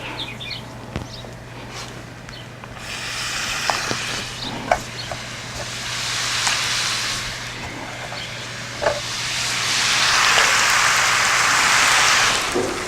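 Wonton strips deep-frying in oil at 350 degrees in a cast-iron Dutch oven fryer. The sizzling starts about three seconds in and swells louder near the end, with a few light knocks.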